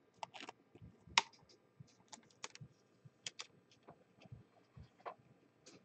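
Faint, irregular clicks and light taps of trading cards and a clear plastic card holder being handled and set down. The sharpest click comes about a second in.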